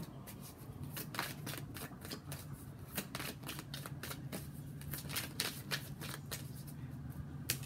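A tarot deck being shuffled by hand: a quick, irregular run of soft card flicks and slaps, ending in one sharper snap.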